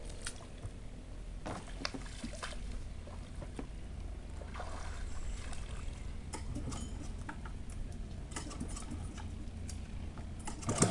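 Water sloshing and trickling with scattered small splashes, over a low steady rumble.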